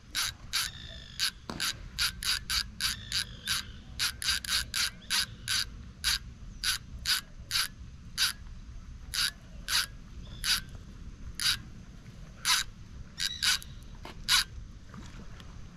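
Fishing reel drag clicking in short irregular bursts as a hooked fish pulls line off the spool, the clicks stopping near the end.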